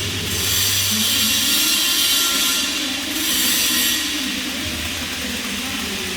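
Flux-cored arc welding on pipe: the arc's steady crackling hiss, broken by a short pause near the middle and dying down about four seconds in as the arc stops.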